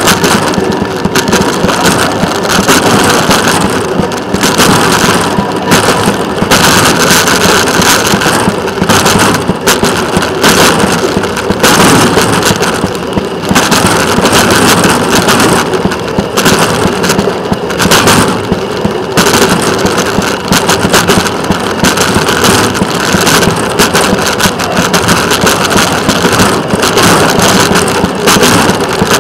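Rail vehicle running along the track, a loud, continuous noisy rush that swells and dips every second or so.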